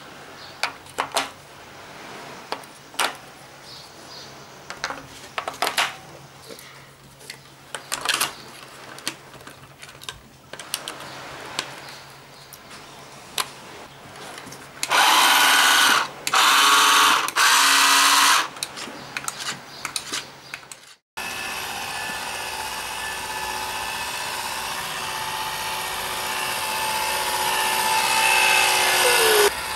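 Clicks and knocks of the plastic toy boat being handled, then the Nikko Sea Racer RC boat's small electric motor and propeller run out of the water in three short bursts, each about a second long. After a break, the boat's motor runs steadily on the water, growing louder near the end.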